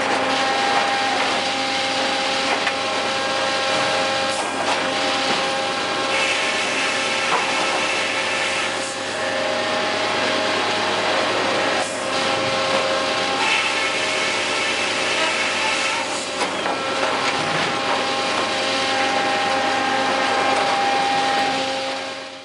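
Sawmill machinery with circle saws running: a steady humming whine over a noisy din, with two stretches of a higher hiss, about six and about thirteen seconds in, each lasting a couple of seconds.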